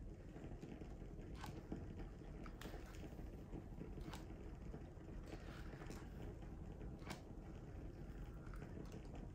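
Faint rustling of hair and a few soft clicks as a flat iron and brush are drawn through sections of a straight wig, over a low steady background noise.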